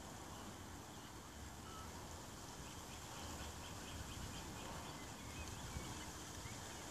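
Outdoor ambience with wind rumbling on the microphone, and a short run of faint, evenly spaced ticks about three seconds in.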